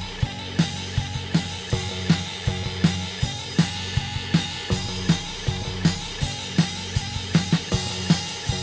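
Rock band playing an instrumental passage live: a drum kit keeps a steady beat of bass drum and snare hits over held bass guitar notes.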